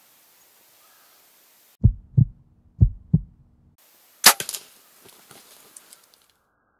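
An edited-in heartbeat sound effect, two muffled double thumps, then a moment of dead silence and a single sharp crack of the shot at a tom turkey, followed by a scatter of smaller clicks and rustles.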